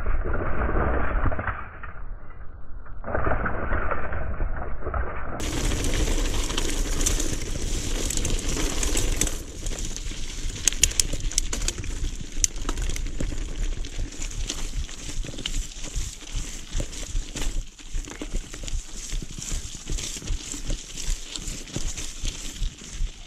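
Mountain bike rolling downhill over a loose rocky trail: tyres crunching over gravel and stones, the bike rattling and clicking, with a low rumble of wind on the microphone. The sound is muffled for the first five seconds, and there is a burst of sharp clatters about ten seconds in.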